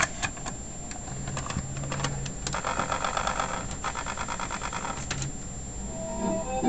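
Sony XR-C350 car stereo's cassette mechanism loading a tape. A few clicks as the cassette goes in, then several seconds of motor whirring with rapid mechanical ticking that stops about five seconds in. Tape playback music starts faintly near the end.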